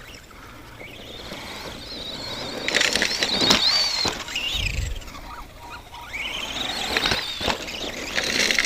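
Arrma Granite 2WD RC monster truck's electric motor and drivetrain whining as it speeds up and slows down, in two main runs. A dull thump comes about halfway through.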